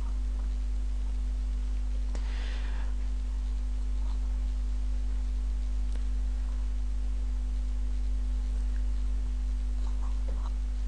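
Steady low electrical hum with a constant low tone above it, and a few faint clicks.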